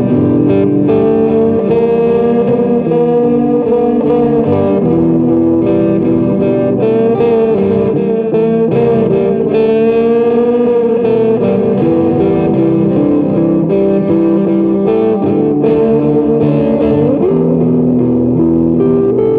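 Semi-hollow electric guitar played continuously: a lead line of held notes with string bends and vibrato, over lower chord tones.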